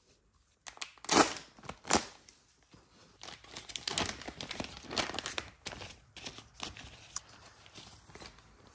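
Thin clear plastic wrapping being slit open and torn apart by hand: two sharp rips about one and two seconds in, then a long stretch of crinkling and tearing as the plastic is pulled off a mirror glass.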